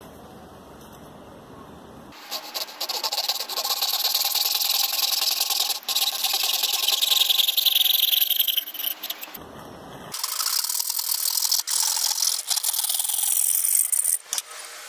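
Hacksaw cutting thin birch plywood, with quick back-and-forth rasping strokes. Sawing starts about two seconds in, stops briefly around nine seconds, and resumes until shortly before the end.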